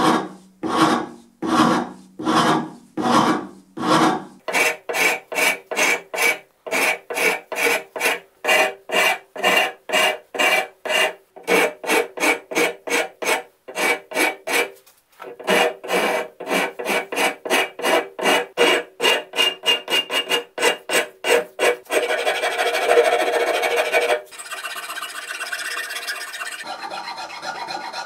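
A metal hand file cutting across a dense bulletwood chisel handle as the handle is shaped. It makes a long series of push strokes, slower at first and then quicker, about two or three a second. Near the end the strokes run together into continuous rasping.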